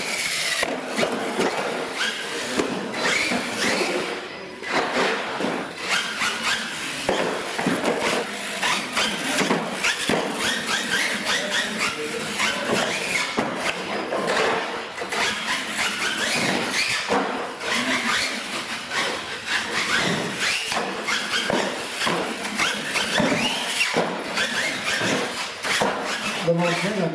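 Radio-controlled monster truck running hard, its motor whining up and down in pitch and its tyres squealing and scrubbing on the concrete floor, with scattered knocks as it hits and lands off the wooden ramps.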